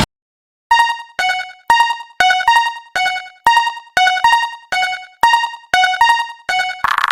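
Japanese railroad crossing alarm bell ringing about twice a second, each stroke a ringing tone that dies away, switching between two pitches. Near the end a steady buzzy synthesized tone comes in.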